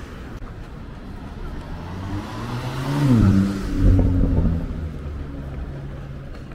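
A car drives past on the street, its engine and tyre noise swelling to a peak about three seconds in, the engine's pitch dropping as it goes by, over steady city traffic.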